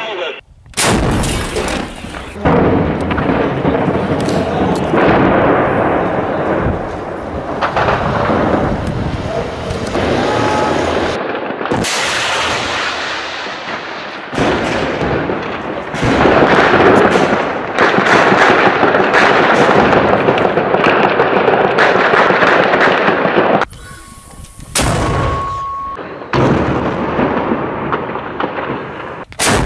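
Street-battle sounds: repeated gunfire and heavy blasts, with men's voices among them. Near the end, two short steady tones sound during a quieter stretch.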